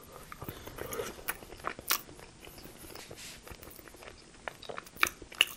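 Close-miked chewing of a mouthful of rotisserie chicken dipped in cheese sauce, with scattered small mouth clicks.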